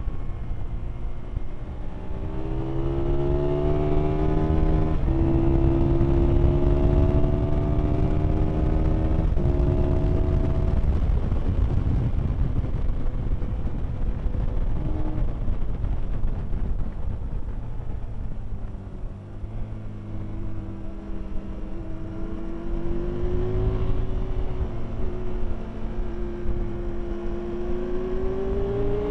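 Aprilia Tuono motorcycle engine at speed, accelerating hard and shifting up through the gears about five and nine seconds in. Around the middle the engine backs off and wind rush takes over. Over the last several seconds the engine rises steadily in pitch again under acceleration.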